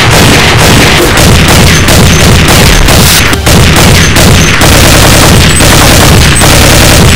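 Loud background music, dense with booming hits and gunfire-like effects.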